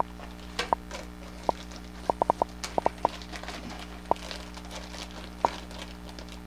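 Sharp little clicks and taps, about a dozen at irregular intervals with a quick run in the middle, from handling packs of weighted jig-head hooks at a table. A steady electrical hum runs underneath.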